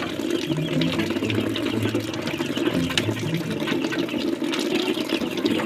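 Tap water pouring steadily into a plastic basin of cockles, splashing onto the shells and the water pooled around them.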